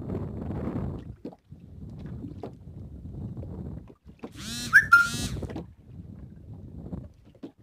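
Low rumbling wind and water noise on the microphone of a small boat while a fishing net is hauled in by hand. About four and a half seconds in, a brief shrill whistle-like squeal, the loudest sound.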